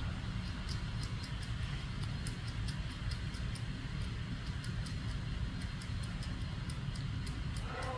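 A squirrel gnawing at a nut: quick, irregular sharp clicks of teeth on shell, about three or four a second, over a steady low rumble.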